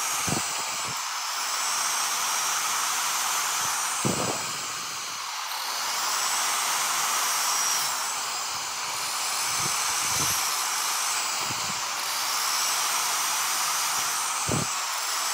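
Electric compound miter saw running with its blade spinning, making a series of crosscuts through wooden boards; the high whine changes with each pass of the blade through the wood. A few short knocks come between the cuts.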